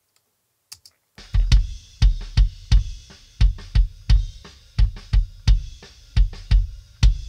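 Rock kick drum track played back, starting about a second in: punchy, deep kick hits in a rock beat, with snare and cymbal bleed behind them. The kick is EQ'd with a deep cut around 700 Hz in the low mids, a boost at 60 Hz and a small boost between 8 and 10 kHz.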